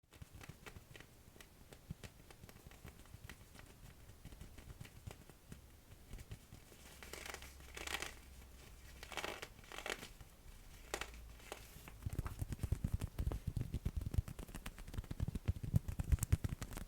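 Fingers pressing on and peeling off the tacky plastic skin of an inflatable duck ring, making sticky crackling ticks. Four or five longer rubbing swishes come in the middle, and from about twelve seconds in there is a quick run of soft low pats on the inflated ring.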